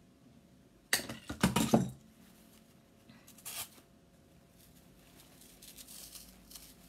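Rustling and crinkling as a craft flower is handled and pressed onto a chalkboard sign: a loud burst about a second in that lasts about a second, a shorter rustle a couple of seconds later, then faint rustling near the end.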